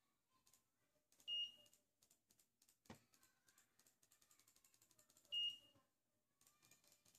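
Two short, high-pitched electronic beeps about four seconds apart, with a sharp click and faint rapid ticking between them.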